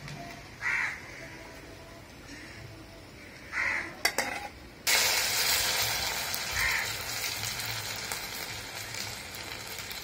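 Urad dal vadas deep-frying in hot oil, a steady sizzle that jumps suddenly much louder about halfway through and then slowly dies back. A crow caws three times, and a few sharp clicks come just before the loud sizzle.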